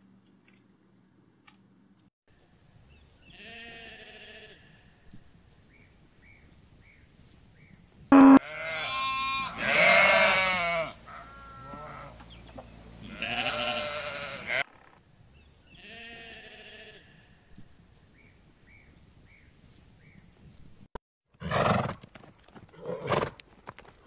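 Alpacas calling: a short, high, wavering cry, then a louder run of cries, then another short cry. Near the end a horse whinnies twice.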